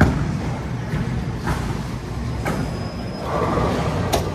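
Bowling ball landing on the lane and rolling with a low rumble, then crashing into the pins about three seconds in.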